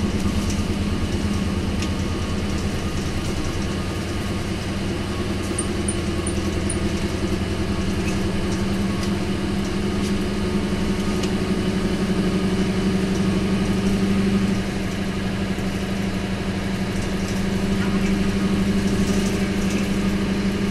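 Isuzu Cubic KC-LV280L city bus's V8 diesel engine pulling steadily under load on a hill climb, heard from inside the bus. It is a constant drone whose pitch creeps slowly upward.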